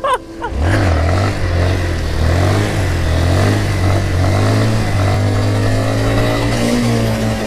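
Honda CRF230L's single-cylinder four-stroke engine pulling steadily under throttle, coming in strongly about half a second in, over a constant rushing noise of wind and spray while riding through flood water.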